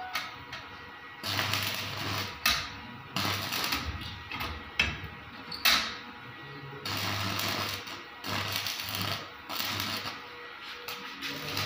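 Stick (arc) welder crackling and sizzling as short welds are laid on a steel frame: a run of bursts about a second each with brief pauses between, a low electrical hum underneath each burst.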